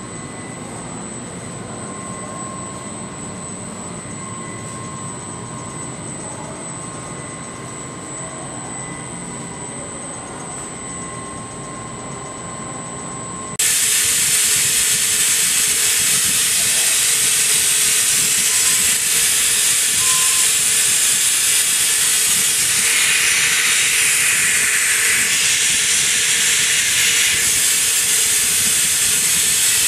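Tape casting machine running with a steady hum and thin high whines. About halfway through, a loud rushing hiss switches on abruptly and holds steady to the end, with a steady lower tone beneath it.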